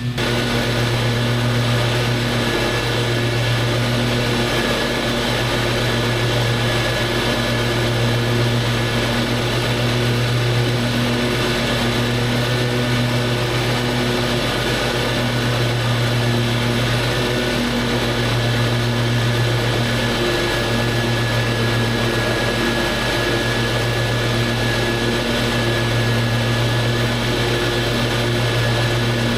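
Lawn mower running steadily while cutting grass, a constant low hum with a thin steady whine above it.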